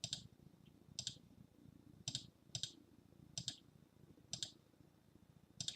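Sharp clicks of a computer being operated, seven in all, spaced about half a second to a second apart, each a quick press-and-release double stroke.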